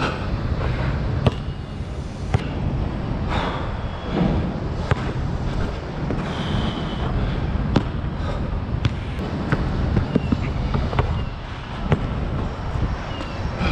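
Basketball bouncing and striking on an outdoor court: sharp knocks at irregular intervals, about one a second, over a steady low rumble. A brief high squeal comes about six and a half seconds in.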